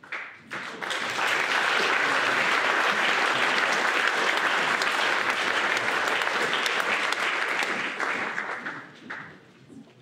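Audience applauding: the clapping swells within the first second, holds steady, and dies away near the end.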